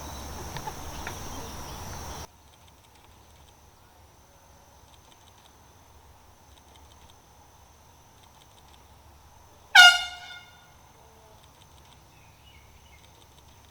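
A single loud air horn blast about ten seconds in: one short, sharp note that cuts off within about half a second, over a faint background of insects chirping.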